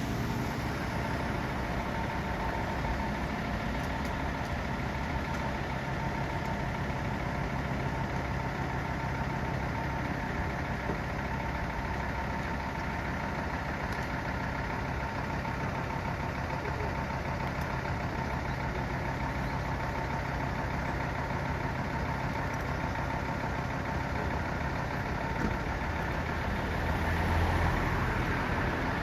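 Fire engine idling steadily, swelling slightly near the end.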